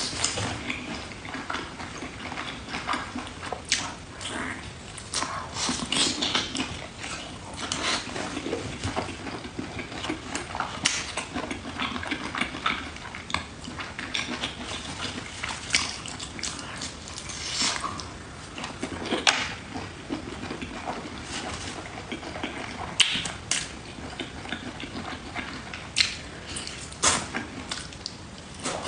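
Close-up eating sounds: a person chewing octopus, with irregular wet clicks and mouth noises throughout.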